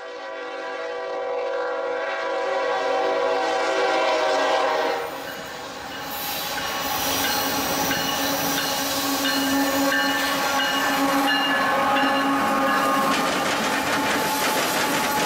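Air horn of an approaching Norfolk Southern freight, led by the Lehigh Valley heritage ES44AC locomotive: one long blast sounding a chord of several tones, cutting off about five seconds in. The lead diesel locomotives then run past, engine drone with the wheels clattering over the rail joints.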